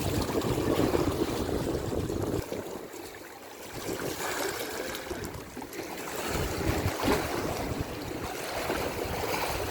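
Wind buffeting the microphone by the sea, with the wash of waves behind it; the low rumble eases for a second or so about two and a half seconds in, then picks up again.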